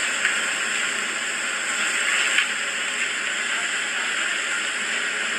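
Oysters sizzling on a very hot flat griddle: a steady hiss.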